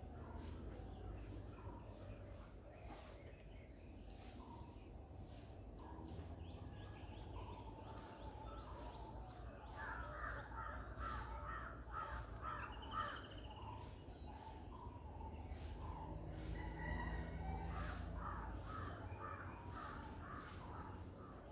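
Birds calling: two runs of rapid, harsh repeated notes, one about halfway through and another near the end, over a faint low background rumble.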